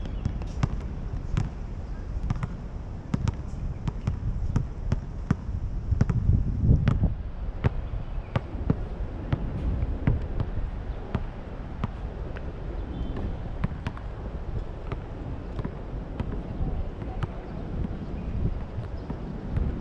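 Basketballs bouncing on an outdoor court: irregular sharp thuds, one or two a second, over a steady low rumble.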